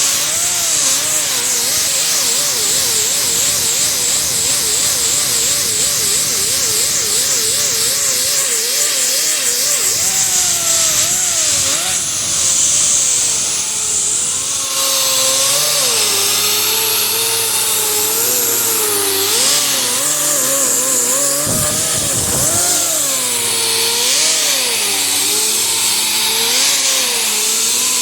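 Power sander running a brand-new 36-grit Norton sanding disc against a 1969 Camaro's steel front fender, with a coarse, steady grinding hiss; the motor's whine wavers up and down as the disc is pressed into the panel and eased off.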